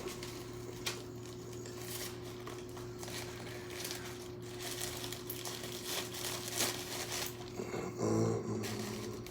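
Packing wrap crinkling and rustling in irregular handfuls as a shipped plant is unwrapped, over a steady low hum.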